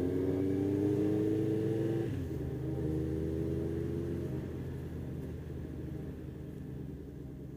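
Honda CBF1000F inline-four motorcycle engine accelerating. Its pitch rises, drops at an upshift about two seconds in, then climbs again before the sound fades away.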